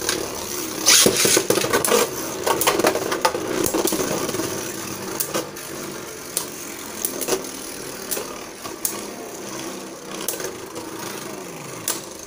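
Two Beyblade Burst spinning tops whirring and scraping across a plastic stadium floor, with frequent sharp clicks as they knock together. Their pitch sinks slowly in the second half as they lose spin.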